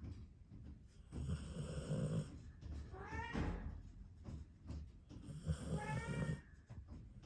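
Dog snoring: rattling snore breaths about a second long, twice, each with a short whistling tone that rises in pitch.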